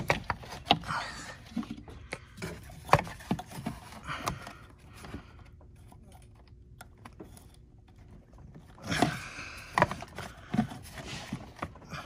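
Hands working a small pin-type clip on a plastic hose connector in an engine bay: scattered clicks and knocks of plastic and metal parts, with a quieter stretch after about five seconds and a louder scuffle around nine seconds in.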